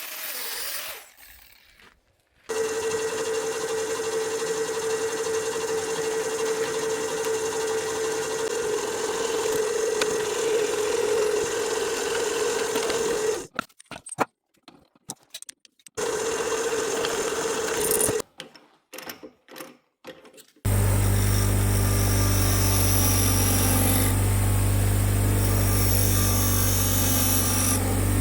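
A handheld power tool running steadily with a constant whine, in several short cut-together stretches. Near the end it gives way to a different steady machine sound with a heavy low rumble.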